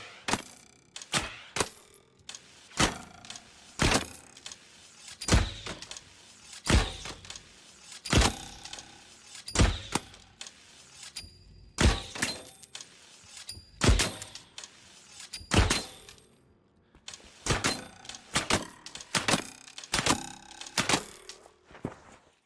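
Cherrywood recurve bow struck over and over: sharp knocks, each with a brief ringing tail, about one a second and often in pairs, coming faster near the end.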